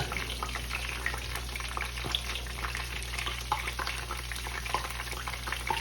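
Sliced long green chillies sizzling in hot oil for a tadka, with many small crackles and pops over a steady low hum.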